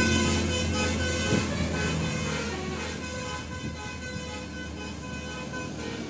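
Tour bus's musical 'telolet' air horn playing a quick tune of short notes over the low rumble of the bus engine, both fading as the bus drives away.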